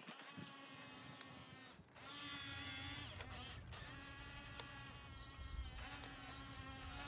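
Whirring of the small electric motors and plastic gearboxes of RC construction models, running in spells a couple of seconds long with brief breaks between them and small shifts in pitch.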